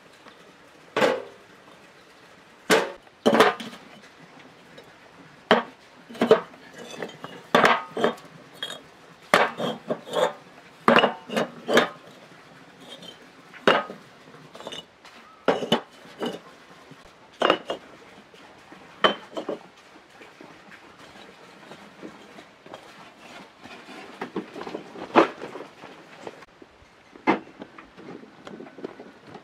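Hollow fired-clay bricks being stacked by hand into a metal wheelbarrow: irregular sharp clinks and knocks of brick on brick and brick on the tray, about one a second, thinning out in the last third.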